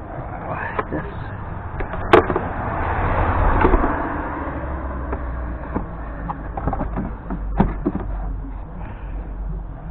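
Scattered clicks and knocks of hand work on parts and wiring connectors being pushed into place, the sharpest about two seconds in and another toward the end. A rush of noise swells and fades around three to four seconds in, over a steady low rumble.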